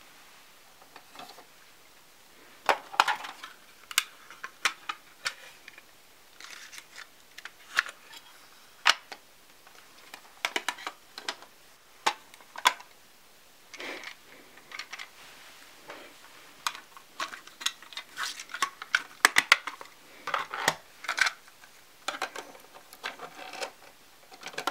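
Plastic cassette tapes and cases being handled: an irregular run of clicks, clacks and rattles as they are sorted in a wire basket and a portable cassette player's buttons are worked.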